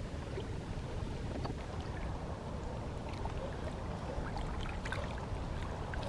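Water trickling and lapping at a pond's shallow edge, with many small scattered drips and ticks over a steady low rumble.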